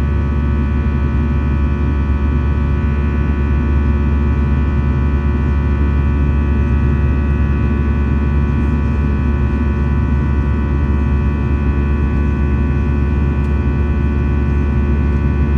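Airbus A320-214's CFM56 turbofan engines at climb thrust, heard from inside the cabin beside the engine: a steady deep rumble under a stack of steady whining fan tones.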